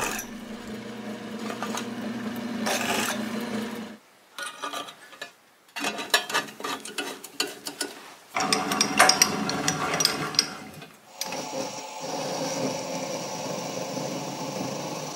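A drill press runs with a steady hum for about four seconds. Then come scattered clicks and a stretch of scraping as the bent sheet-metal tray is handled and fitted. For the last few seconds a mini metal lathe runs with a steady hum, its chuck spinning.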